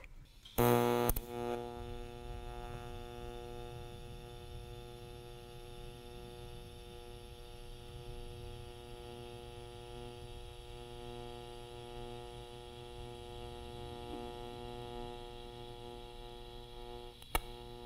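TIG welding arc on a purged stainless steel tube: the arc strikes with a short loud burst about half a second in, then runs as a steady electrical buzz. Near the end a brief sharp pop, the hiccup of the tungsten dipping into the weld puddle, which contaminates the tungsten.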